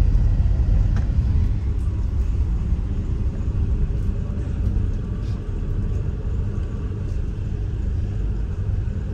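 Steady low engine rumble with a faint hiss over it, unbroken throughout.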